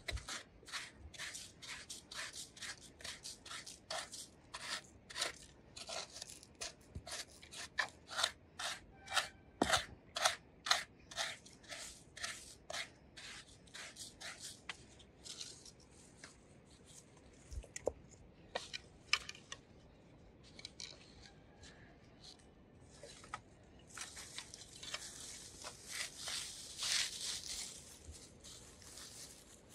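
Dry sticks cracking and clattering in quick, sharp snaps, several a second, thinning out about halfway. Near the end, dry leaves crackle as they are crumpled and pushed in between the stones of a three-stone hearth.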